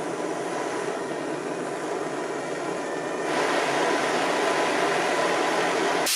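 Gas torch flame running with a steady rushing hiss while brazing a brass pin into a brass buckle. A little over three seconds in it gets louder and hissier.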